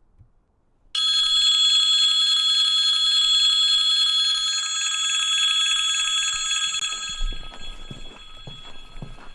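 An electric bell starts ringing abruptly about a second in and rings loud and steady for about six seconds, then fades. Footsteps become audible under it near the end.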